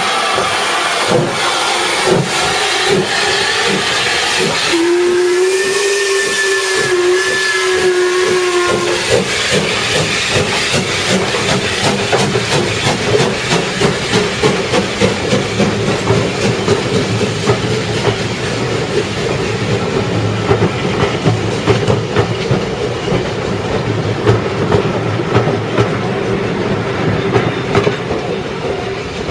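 Steam locomotive No. 90733, a WD Austerity 2-8-0, hissing steam and then blowing its whistle for about four seconds, a few seconds in. Its coaches then run past with a steady rapid clickety-clack of wheels over the rail joints.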